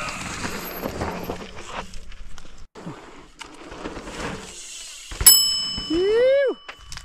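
Mountain bike rolling over a dirt trail, with a rushing noise and scattered knocks. About five seconds in, a sharp bell-like ding rings on steadily, joined briefly by a whistle-like tone that slides up and then drops away.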